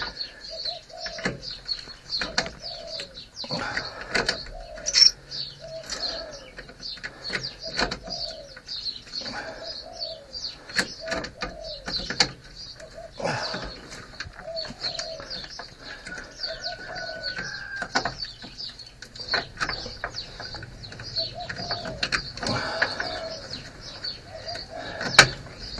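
Pigeons cooing over and over, with small birds chirping steadily in the background. Scattered sharp clicks and knocks come through from hands working a stuck old headlight switch under the dash, the loudest about five seconds in and near the end.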